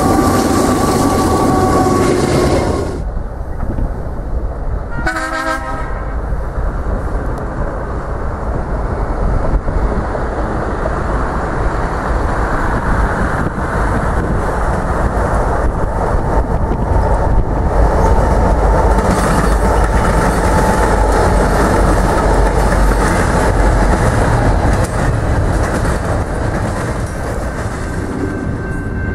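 Union Pacific diesel freight trains passing, a steady heavy rumble of locomotives and rolling railcars. A train horn sounds in the first few seconds, and there is a short horn blast about five seconds in.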